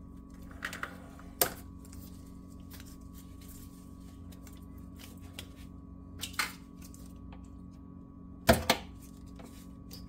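Scattered plastic clicks and knocks as a car wiring harness is worked free of its tape and plastic housing, loudest as two sharp knocks close together about eight and a half seconds in, over a steady low hum.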